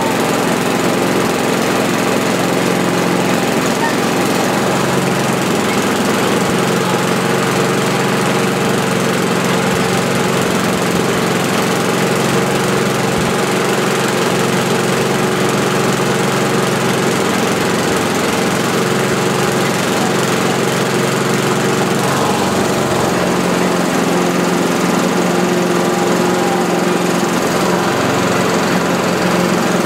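Mountfield SP53 self-propelled lawnmower's petrol engine running steadily at constant speed, just started after standing unused for three years and burning off white smoke.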